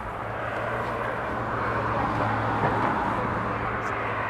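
A motor running steadily, a low hum under an even hiss.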